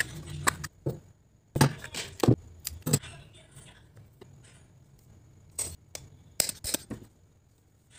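Stationery being handled, heard as a string of sharp clicks and knocks: a clear plastic box of paper being handled in the first three seconds, then a hole punch clicking a few times through a card near the end.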